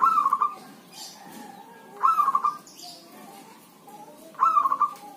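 Zebra dove (perkutut) singing from its cage: three short warbling coos about two seconds apart, each opening with a quick rising note.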